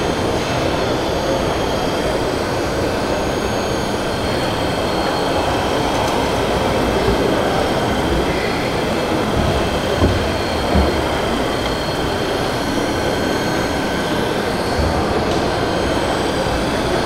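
Steady, dense mechanical din with a few faint high whines running through it: radio-controlled model construction machines working in a busy indoor exhibition hall.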